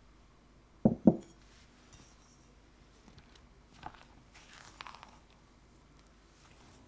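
Two quick dull knocks close together about a second in, then faint soft scraping as a silicone spatula begins cutting softened butter into flour in a glass mixing bowl.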